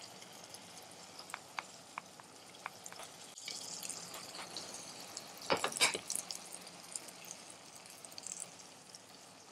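Wooden spatula scraping and tapping as cooked rice is pushed off a dish into a pan, with a few light taps early on and a louder clatter of the utensils about halfway through.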